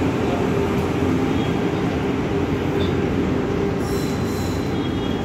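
Indian Railways electric locomotive and its coaches passing beneath, a steady rumble of wheels running on the rails.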